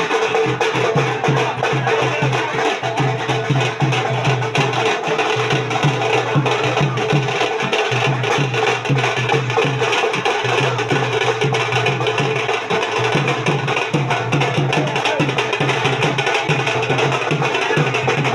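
Indian song music with a steady percussion beat.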